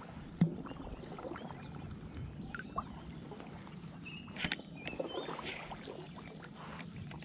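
Shallow water sloshing and lapping around an angler wading in a weedy swamp, with a few small clicks from handling a baitcasting rod and reel.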